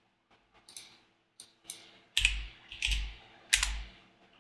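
Computer keyboard keystrokes: a few light taps, then three heavier strokes with a low thud, evenly spaced under a second apart from about two seconds in, as a number is typed into a field.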